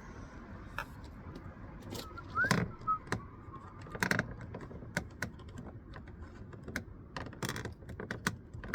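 Plastic interior door handle cover on a 2000 Toyota Sienna being pushed and worked onto its two clip points by hand: scattered clicks and knocks of hard plastic, with a few louder knocks and a brief squeak.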